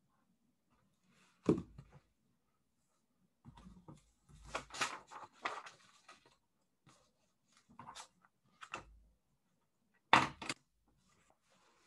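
Scattered handling sounds close to the microphone: short knocks and rustles as things are moved about on a desk, with the loudest knocks about a second and a half in and near the end, and a run of rustling and tapping in the middle.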